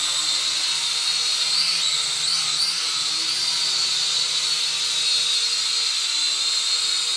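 Small toy quadcopter drone hovering, its four propeller motors giving a steady high whine that wavers slightly in pitch as it holds and shifts position.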